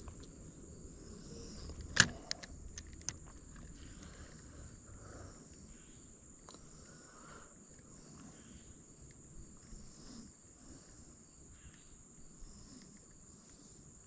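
Insects chirring steadily at a high pitch in a summer-evening chorus over quiet water. A single sharp knock comes about two seconds in, followed by a few lighter ticks, and a faint low hum dies away after about five seconds.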